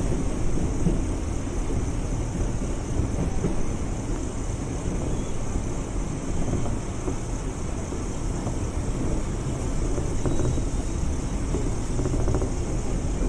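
Steady running rumble of an electric commuter train moving along the track, heard from inside the carriage.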